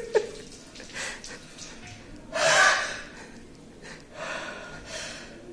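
A man breathing heavily between sneezes in a sneezing fit brought on by kalanchoe juice in his nose, with one loud, gasping breath about two and a half seconds in.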